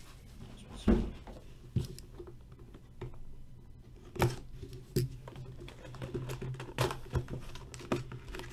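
Plastic wrap crinkling and tearing as it is peeled off a cardboard trading-card hobby box, and the box's cardboard lid being pulled open, with several sharp knocks and taps of the box and hands against the table.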